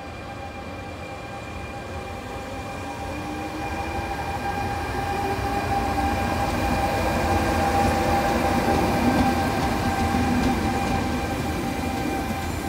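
A pair of Trenitalia E464 electric locomotives moving at shunting pace close by, hauling two dead electric multiple units. A steady electrical whine sits over the rail and running-gear rumble. The sound grows louder as the locomotives pass, loudest about two-thirds in.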